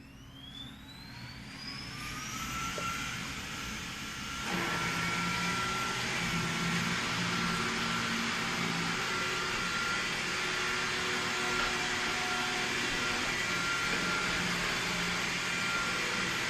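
Roborock E25 robot vacuum's suction motor starting up: a whine that rises in pitch over the first couple of seconds, then about four and a half seconds in the sound jumps louder to a steady full-power running hum with a constant high whine, as it begins cleaning.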